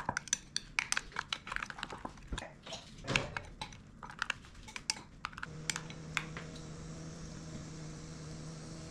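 Quick, irregular clicks and clinks of kitchen utensils and dishes being handled during food preparation. About five and a half seconds in, the clicking stops and a steady low hum begins.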